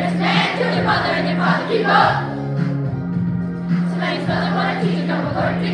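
A group of children singing a song together over an instrumental backing track with held low chords.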